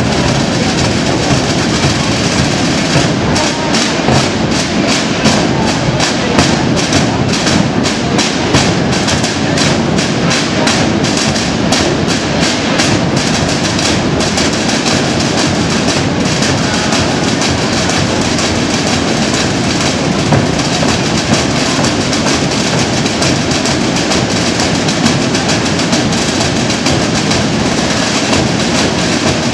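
A marching drum band of many rope-tensioned drums playing together: loud, steady drumming of rapid, closely packed strokes that runs on without a break.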